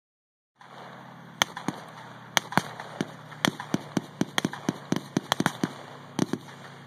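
Irregular sharp pops of blank small-arms fire, coming in quick clusters of several a second, over a steady low drone.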